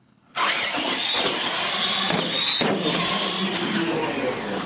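Two radio-controlled monster trucks launching off the line in a straight-line drag: their electric motors and gears whine up suddenly about half a second in, the whine climbing in pitch and then dropping, with tyre noise on the hard floor.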